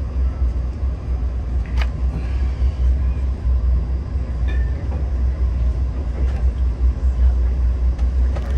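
Steady low rumble of an LRC passenger railcar running at speed, heard from inside the car, with a few faint clicks.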